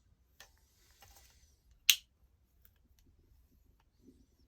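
Folding pruning saw being unlocked and swung open by hand: faint clicks and handling rustle, with one sharp click of the lock mechanism about two seconds in.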